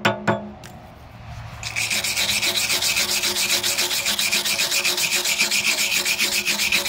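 A chipping hammer knocks a couple of times on fresh stick-weld beads on a steel excavator bucket. After a short pause, a wire brush scrubs the welds with rapid back-and-forth strokes, cleaning off the slag left by the 6011 rod.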